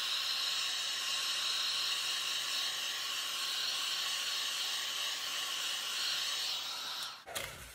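Heat embossing tool's fan blowing hot air in a steady hiss as it is played over wet acrylic pour paint to pop surface bubbles and bring up cells; it is switched off about seven seconds in.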